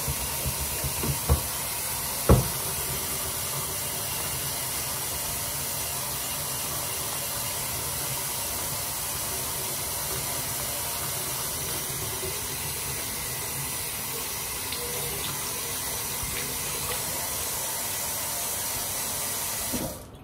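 Kitchen faucet running a steady stream into a stainless steel sink while hands are washed under it, with a few knocks in the first couple of seconds. The running water cuts off suddenly near the end.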